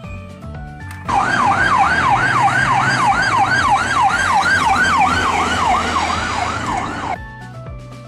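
Ambulance siren on a fast yelp: a rapid rising-and-falling wail, about three sweeps a second. It starts suddenly about a second in and cuts off about a second before the end.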